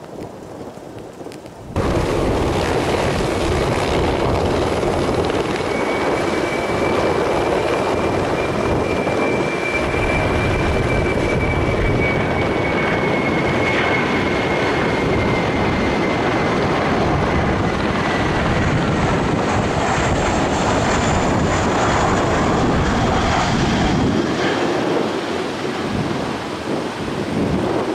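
Boeing 737-300's CFM56 jet engines on final approach: a loud, steady jet rumble with a thin high whine that slowly falls in pitch as the airliner comes in. The sound eases near the end as it flares to land.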